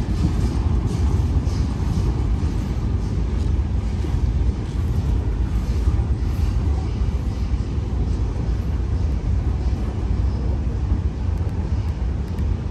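Freight cars of a long CSX train rolling past: a steady low rumble of wheels on rail, with faint clicks in the first few seconds.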